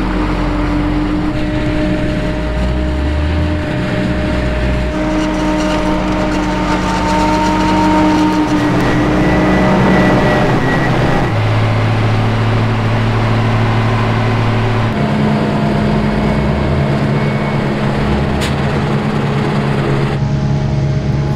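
Diesel engines of a New Holland FR 8900 self-propelled forage harvester and an MB-trac tractor running steadily under load while chopping maize. The engine note jumps to a different steady pitch several times.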